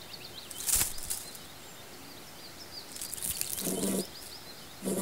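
Animation sound effects: a bed of small, quick chirps like birds or insects, a short swish about a second in, and near the end a short low buzzy call that fits the small bug creature being handled.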